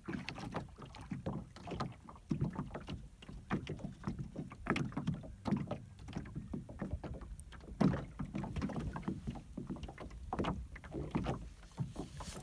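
Small wind-driven waves lapping and slapping irregularly against the hull of a small anchored boat, with a light wind.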